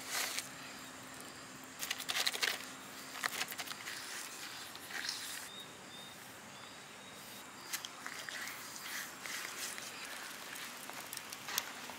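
Hands packing a wet salt-and-flour paste onto a whole fish in a metal plate: faint, irregular scraping and rustling, most of it about two to four seconds in.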